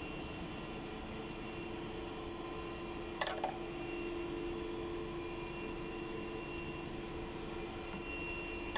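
Steady mechanical hum, like a fan or air conditioner running, with a single sharp metallic click about three seconds in and a fainter one near the end, from hand tools on the engine.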